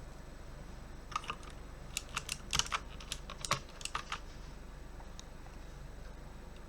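Typing on a mechanical keyboard with Outemu blue switches: an irregular run of key clicks for about three seconds, then a single keystroke a second later.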